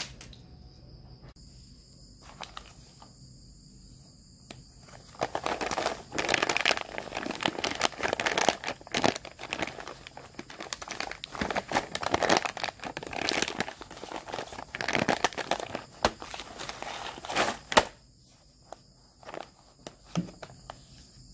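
Foil coffee bag crinkling and rustling as hands handle it and turn it over, in a dense run of crackles that starts about five seconds in and stops near the end.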